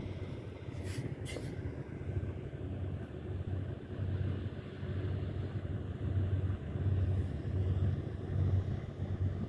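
Boat engine running with a low, steady rumble that throbs gently. Two short sharp clicks come about a second in.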